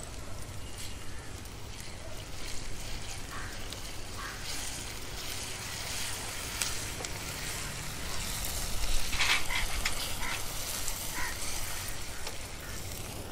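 Chopped onion and a crushed green chilli, garlic and ginger paste sizzling in hot oil in an iron kadhai while a spatula stirs and scrapes against the pan. The scraping is loudest about nine seconds in.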